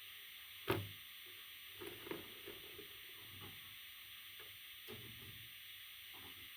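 A single sharp knock about a second in, then a few soft scratching, shuffling sounds over a steady hiss.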